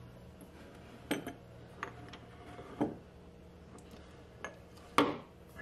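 Glass jars and dropper bottles being picked up and set down on a windowsill: about five separate knocks and clinks, the loudest near the end.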